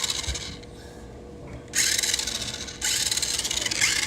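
Remote-control toy car running on a hard floor, its tyres scrubbing and rasping with its small electric motor. The sound eases off for about a second, then comes back in two loud scrubbing spurts of about a second each.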